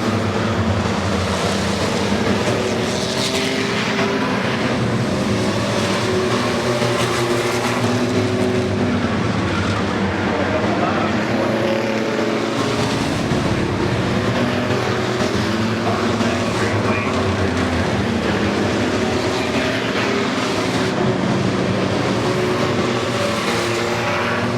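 A field of race trucks running together on a short oval track, the engines of many trucks sounding at once, steady and loud, with their pitches shifting slightly as they circulate.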